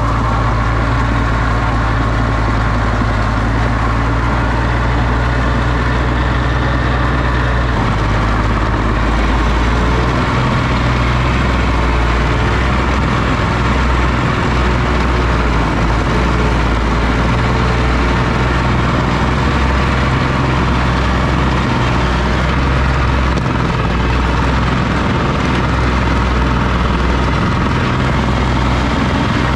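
Oliver OC-6 crawler tractor's engine running steadily, its low engine note shifting slightly about eight to ten seconds in.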